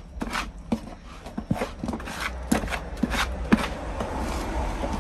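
A scoop stirring and scraping dry, crumbly groundbait of breadcrumbs, rice pollard and powdered bait around a bait bucket. It makes uneven gritty scraping strokes, a couple a second, which run together into a continuous rustling shuffle about three and a half seconds in.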